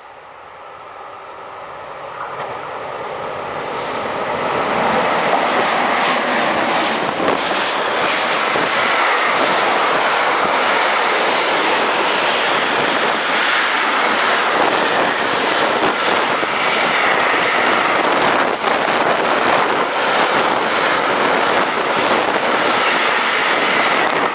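Intermodal freight train of container and swap-body flat wagons passing through the station at speed, growing louder over the first five seconds as it nears, then a steady loud rumble and rattle of rolling wagons with repeated clacks from the wheels.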